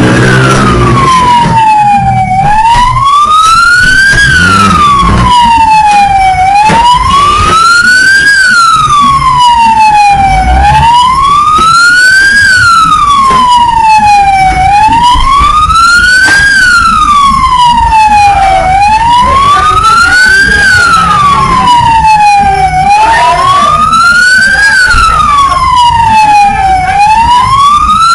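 Siren wailing loudly, its pitch sliding slowly up and down about once every four seconds.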